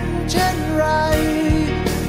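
Background music: a song's melody of held, sliding notes over a full band accompaniment.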